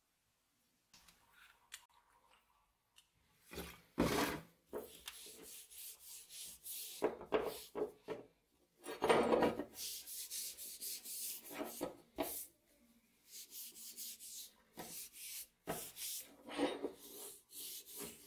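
A rag rubbed back and forth over a wet steel meat cleaver blade: a string of scrubbing strokes with short pauses, starting a few seconds in.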